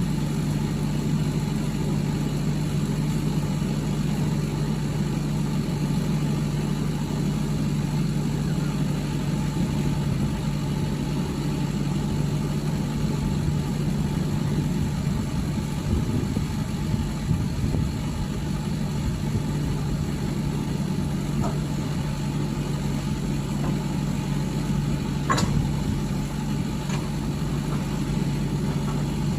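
Lorry's diesel engine running steadily with an even low hum, and one sharp click about three-quarters of the way through.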